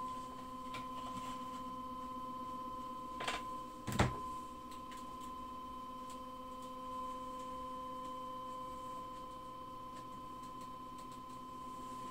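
Anycubic Wash and Cure station's turntable motor running during a UV cure, giving a steady high-pitched hum; a short knock about four seconds in.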